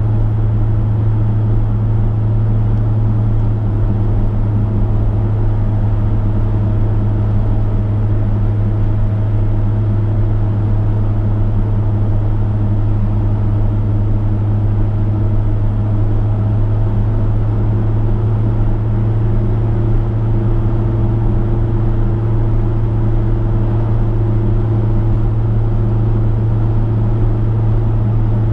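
Steady low drone of a V8 Chevrolet's engine with tyre and road noise, the car cruising at constant speed on the highway.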